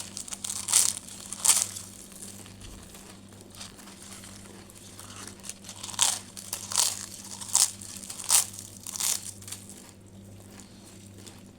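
Crunchy food being bitten and chewed close to the microphone: sharp crunches about once every three quarters of a second, three at the start and a second run of five from about six seconds in. A faint steady hum lies underneath.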